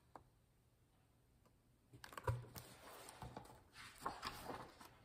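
Pages of a large hardcover picture book being turned by hand: faint paper rustling and small handling clicks, starting about two seconds in, with one sharper click among them.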